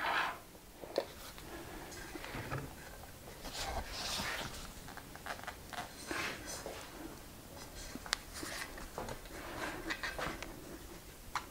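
Quiet handling sounds of metal parts on a workbench: scattered light clicks and taps, with soft rustling in between.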